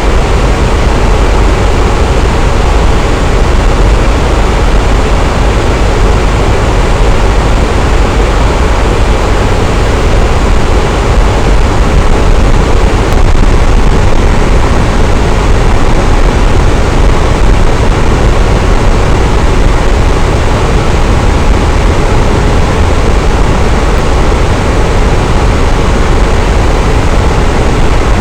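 Electric fan running steadily: an even, loud whooshing rush of moving air with a deep low hum, unchanging throughout.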